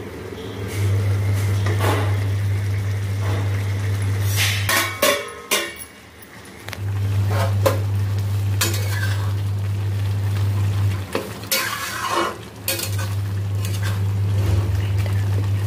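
Metal on metal in a steel kadhai: the steel lid clinks as it is handled with tongs, and a spatula scrapes and taps while stirring tomato masala. The clinks come in two clusters, about five seconds in and about twelve seconds in, over a steady low hum that drops out twice.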